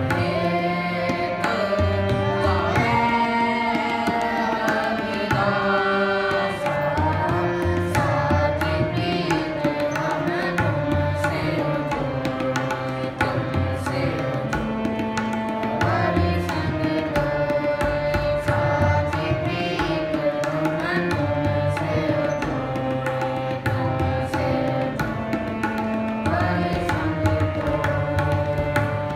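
Shabad kirtan devotional music: a tabla pair playing a steady rhythm under two harmoniums holding melody and drone notes, with voices singing a hymn over them.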